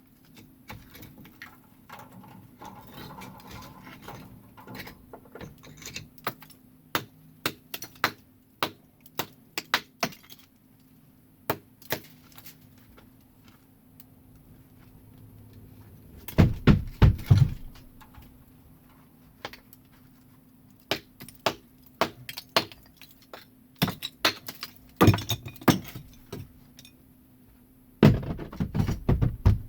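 Chimney being demolished by hand: bricks knocked loose and dropped, making a run of sharp clinks and knocks, with louder clusters of heavy crashing thuds about 16 and 28 seconds in.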